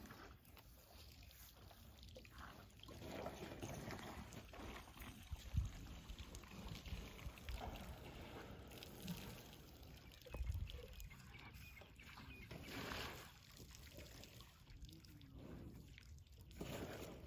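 African elephant drinking at a waterhole: faint trickling and pouring of water as it squirts trunkfuls into its mouth. Two dull low thumps come about five and ten seconds in.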